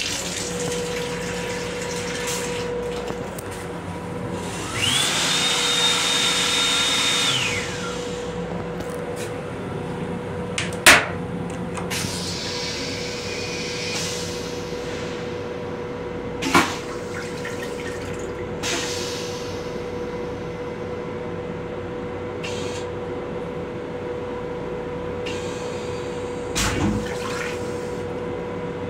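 Sink faucet in a Metro-North M7 railcar restroom running into the basin, then a loud rush with a high steady whine for about two and a half seconds. A few sharp clicks and knocks follow over a steady electrical hum.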